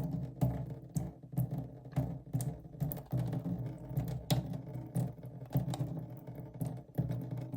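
Irregular metallic clicks and taps, two or three a second, as the partly opened lid of a tuna can is pressed down to squeeze the oil out, over a low steady hum.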